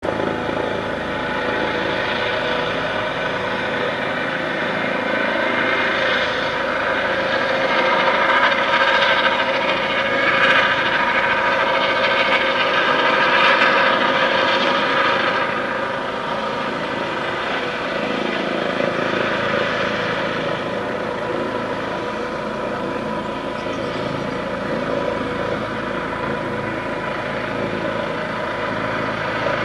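Eurocopter EC135 police helicopter flying overhead: steady rotor and turbine noise with a constant whine. It grows louder for several seconds in the middle and then eases off again.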